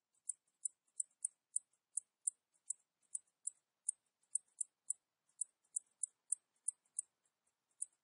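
Cicadas chirping: short, high-pitched chirps repeating about three times a second, some louder and some fainter.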